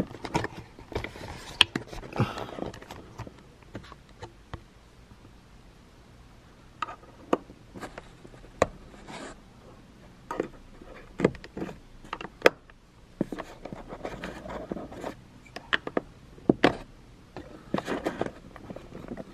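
A metal pick tool prying and scraping at the plastic cover cap on a car headliner grab handle mount, giving irregular sharp clicks and short scrapes.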